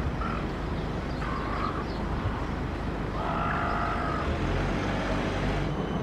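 Silver gulls calling, three calls in all: a short one at the start, another about a second in, and the longest about three seconds in. Underneath is a steady low rumble of city background noise.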